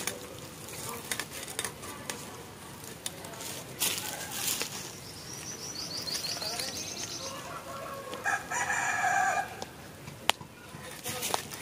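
A rooster crowing once, about eight seconds in, a single call lasting over a second. Before it, a rapid run of high bird chirps, with scattered clicks and knocks throughout.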